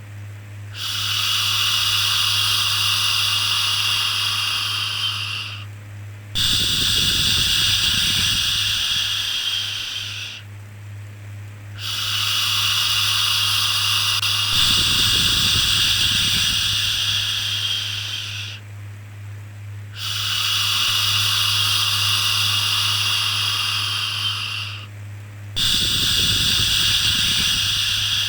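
Shushing 'shhh' sounds for soothing a baby, repeated: five long hisses of about four to six seconds each, broken by short pauses, over a steady low hum.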